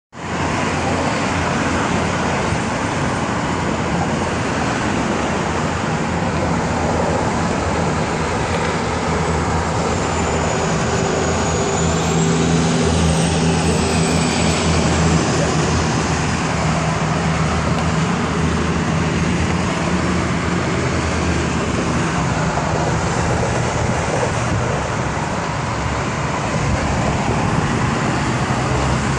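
Steady road traffic noise from passing cars on an adjacent road, with a low hum underneath and a faint high whine that dips and rises about halfway through.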